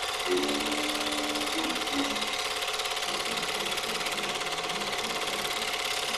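Super-8 film projector running, a fast, even mechanical rattle with a steady hum, laid over the film's soundtrack.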